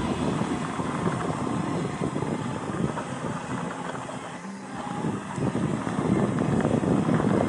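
Mountain bike riding on a dirt single track: wind rushing over the microphone with crackling tyre and trail noise, easing briefly about four and a half seconds in.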